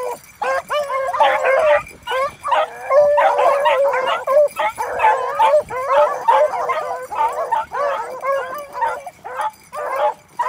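A pack of beagles baying on a rabbit's scent trail, several voices overlapping in a nearly continuous chorus of yelps and drawn-out bawls, thickest in the middle of the stretch.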